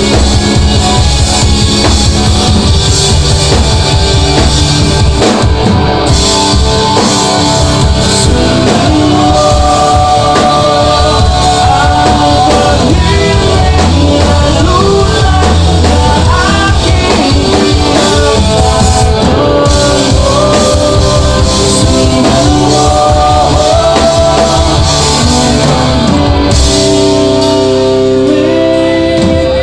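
Rock band playing live: a lead voice singing over drums, electric and acoustic guitars and bass guitar. Near the end the drums stop and held guitar chords ring on.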